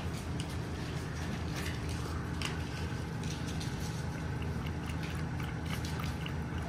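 Saluki puppy lapping milk from a bowl: faint, quick wet clicks over a steady low hum.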